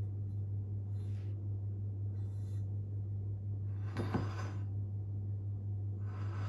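A steady low hum throughout. About four seconds in there is a brief knock and scrape as a welded square steel tube frame is shifted on a plywood workbench.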